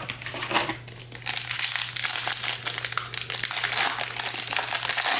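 Foil wrapper of a Bowman Chrome baseball card pack crinkling as it is handled and opened, a dense run of irregular crackles.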